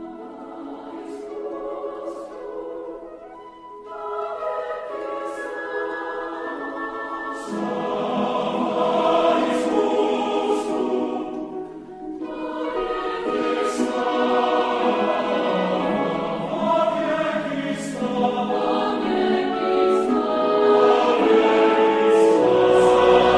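Background music: choral singing over orchestra, swelling louder toward the end.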